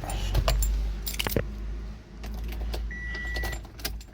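A bunch of car keys jangling and clicking as they are handled, over a low steady rumble, with one short high beep about three seconds in.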